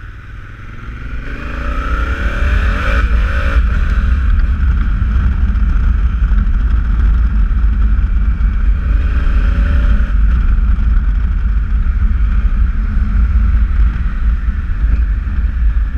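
Honda Africa Twin CRF1000L's parallel-twin engine accelerating through the gears, getting louder over the first two seconds, with rising rev sweeps around 1–4 s in and again near 10 s. A heavy rush of wind noise runs underneath.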